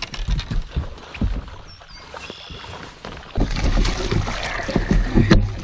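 A largemouth bass thrashing and splashing hard at the surface as it is scooped into a landing net, starting about three and a half seconds in and lasting about two seconds. A few knocks of handling come in the first second or so.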